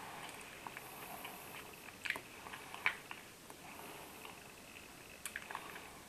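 Teeth grinding in sleep (bruxism): scattered short gritty clicks and scrapes of teeth rubbing together, the sharpest about two and three seconds in and a small cluster near the end.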